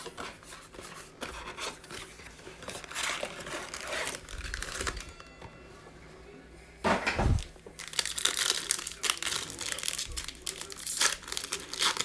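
Plastic card-pack wrappers crinkling and tearing as a trading-card blaster box and its packs are opened by hand, in irregular rustles, with a louder rip and thump about seven seconds in.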